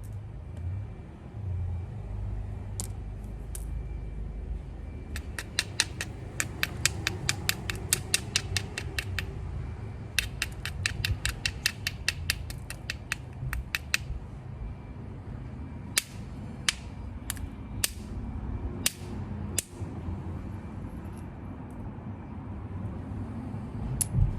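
Obsidian being knapped by hand: two runs of quick, sharp clicks, several a second, each run lasting about four seconds, then single clicks about a second apart and one more near the end.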